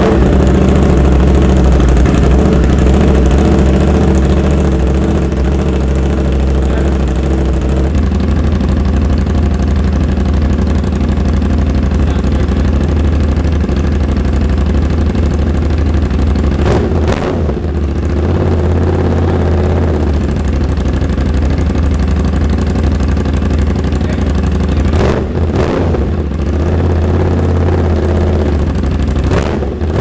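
Aprilia RS660's 659 cc parallel-twin engine running through its aftermarket exhaust on the new UpMap ECU calibration, just after starting. It settles into a steady idle about eight seconds in, with a few short throttle blips later on.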